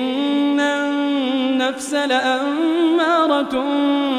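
A man's voice chanting Quran recitation (tajweed) in a slow melody, drawing out long held notes that waver and bend in pitch.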